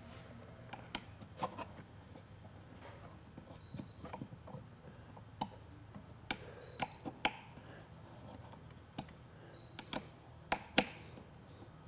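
Irregular faint clicks and taps of a metal Allen wrench turning a small inset screw and washer down into the base of a sewing machine carrying case, the loudest click near the end.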